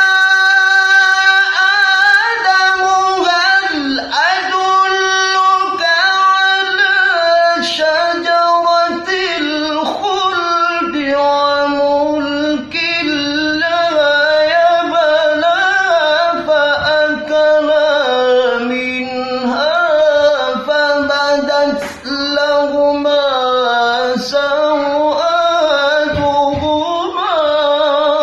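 A man's high solo voice singing unaccompanied in the melodic style of Quran recitation, as a voice and breath-training exercise: long held notes broken by quick ornamented turns. About ten seconds in the melody moves down to a lower pitch and carries on in long phrases.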